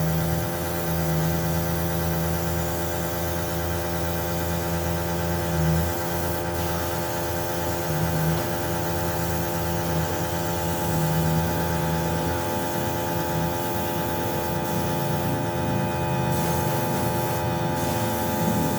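A steady hum made of several steady tones over a hiss, unchanging.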